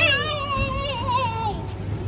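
A child's voice singing or drawing out one long, wavering high note, dying away about a second and a half in, over a steady low hum.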